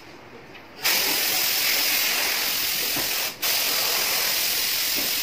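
Compressed air hissing steadily from a paint spray gun, starting about a second in, with a brief break near the middle: air blown over the wet-sanded fender to dry it.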